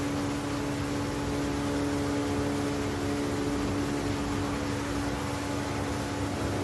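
Subway train running through a tunnel: a steady rumble of wheels on rails under a constant electric hum that stays at one pitch.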